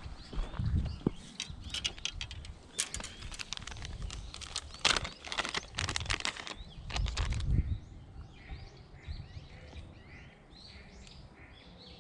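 Close clicks, rustling and low thumps of handling for the first half or so, then from about two thirds in many short chirping bird calls repeating quickly.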